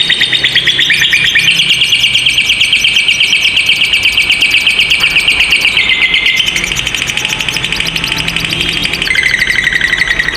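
Lovebirds giving the long, unbroken chattering trill called 'ngekek panjang': a fast, high rattle of rapid pulses that runs without a pause and shifts in pitch a few times.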